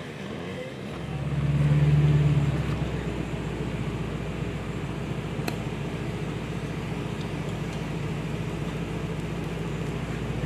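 A motor vehicle's engine running steadily with a low drone, louder for a moment about two seconds in.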